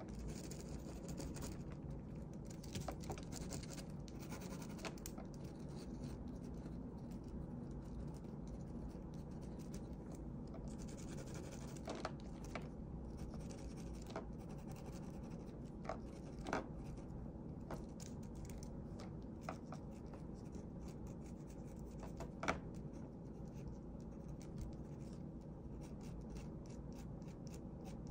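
Pen nib scratching on paper in short drawing strokes, with a few sharper taps now and then (the loudest about two-thirds of the way through), over a steady low hum.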